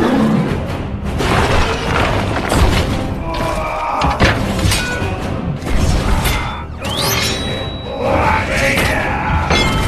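Transformers robot transformation sound effects: a dense run of mechanical clanks, thuds and booms laid over music, with a rising whine about seven seconds in.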